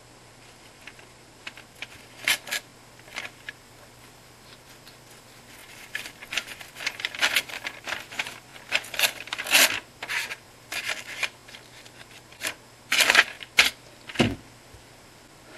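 Fillet knife cutting a small pike's fillet free on newspaper: a run of short crackling scrapes and crinkles, sparse at first and thick in the second half, with a dull thud near the end.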